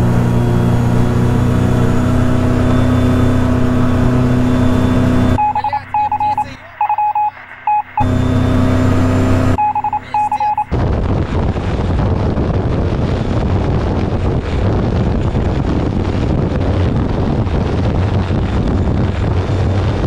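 Self-launching glider's engine and propeller running at full takeoff power, a steady drone. Twice, for a second or two, it drops out and only short repeated electronic beeps are heard. From about ten seconds in the drone continues under a rushing of wind on the microphone.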